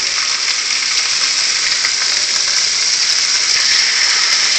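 Spring King salmon fillets sizzling steadily in hot oil in a frying pan as they sear.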